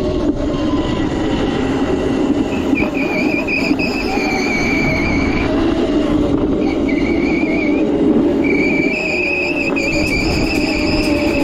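Razor Crazy Cart electric drift kart driving over concrete: a wavering high electric-motor whine over the steady rumble of its hard wheels and casters on the pavement. The whine cuts out briefly about six seconds in, then returns.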